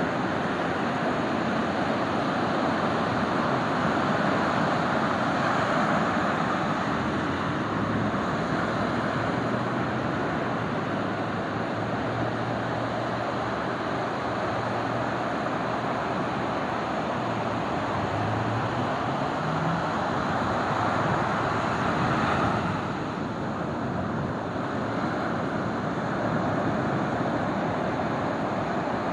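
Ocean surf breaking and washing up the beach as a steady rush, swelling and easing as the waves come in.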